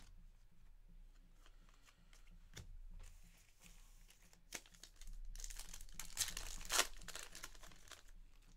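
A foil trading-card pack wrapper, from Panini Revolution Basketball, torn open and crinkled for about three seconds, starting about five seconds in. Before it come scattered light clicks as cards and packs are handled.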